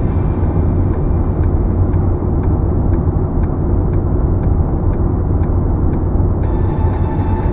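Car cabin road noise at highway speed: a steady low rumble of tyres and engine, with faint regular ticks about twice a second.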